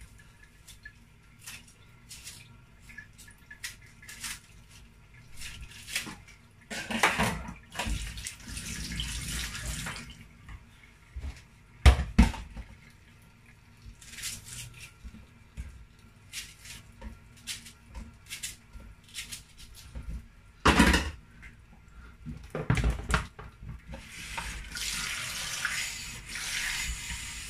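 Kitchen tap running into a stainless-steel sink, splashing louder at times as the water hits hands, onion and a blender jar. Small knife clicks as onions are peeled and cut, and two sharp knocks that stand out above the rest.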